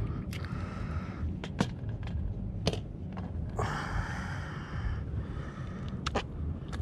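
Handling noises as a small mangrove snapper is held and measured on a wooden table: a few sharp clicks and taps, and a short rustle near the middle, over a low steady rumble.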